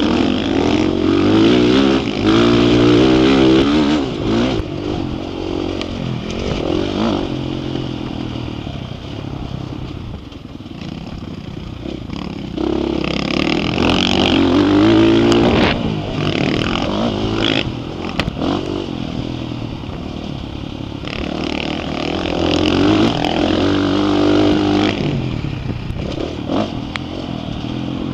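Dirt bike engine revving hard and easing off again and again, its pitch climbing and dropping through the gears, heard close up from the rider's own bike.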